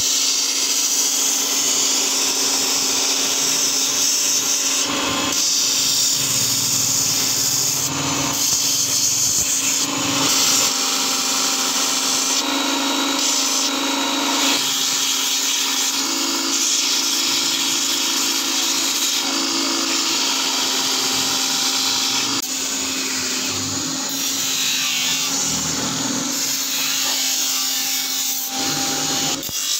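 Electric bench grinder-buffer running with its wheels spinning while knife blades are ground and polished against them. A steady motor hum sits under a hiss from the blade on the wheel, which grows and fades as the blade is pressed on and lifted off.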